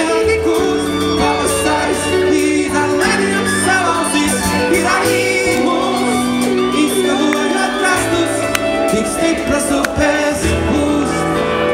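Live band playing a song: a male lead singer with a backing voice over acoustic guitar, keyboards and sustained low bass notes that change every second or two.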